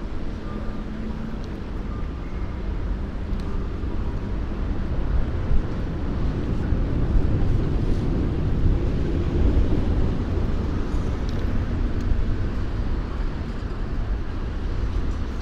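Steady rumble and hiss of riding a bicycle along city streets: wind buffeting the microphone, mixed with road and traffic noise. It swells a little in the middle.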